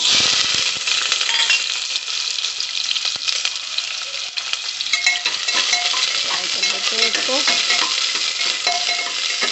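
Sliced onions with cumin seeds hit hot oil in a pressure cooker and start a loud sizzle all at once. The frying goes on steadily with small crackles, and a slotted spoon stirs the onions near the end.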